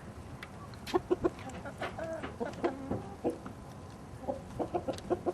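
Backyard hens clucking: short pitched clucks in bunches, with a quieter spell near the end.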